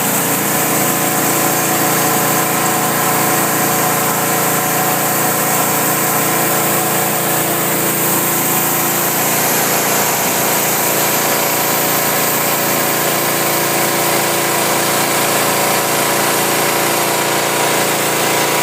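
Engine-driven 250-bar pressure washer running steadily, its engine hum under a strong hiss of high-pressure water spray on patio slabs.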